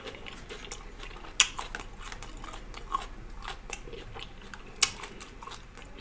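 A person chewing food with wet mouth sounds: a steady run of small lip smacks and clicks, with a few sharper clicks standing out about a second and a half in, at about three seconds and near five seconds.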